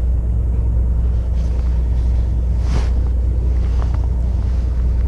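Steady low rumble of a fishing boat's engine running, with a brief rustle about three seconds in.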